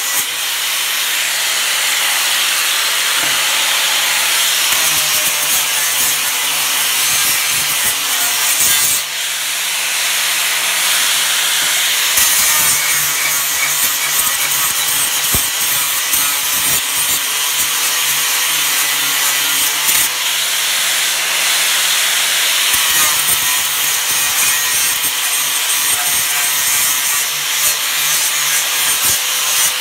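Angle grinder with a flap disc running against a plasma-cut steel plate, a loud steady grinding over the motor's hum that eases briefly a few times. It is knocking the slag off the cut edges.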